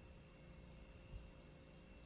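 Near silence: a faint steady hum, with one soft low thump about a second in.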